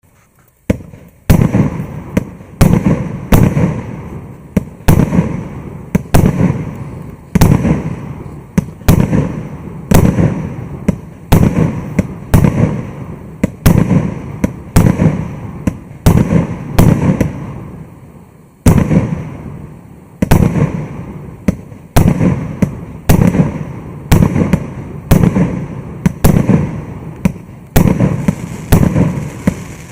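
Maxsem GWM5038 firework battery firing shot after shot, about one and a half sharp bangs a second, each with a rumbling tail, with one short pause a little past halfway.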